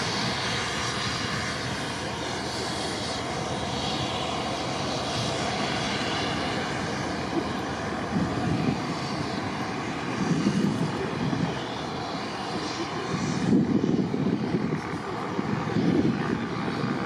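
Eurofighter Typhoon's twin EJ200 turbofan engines running at taxi power: a steady jet rush. Low surges grow stronger through the second half.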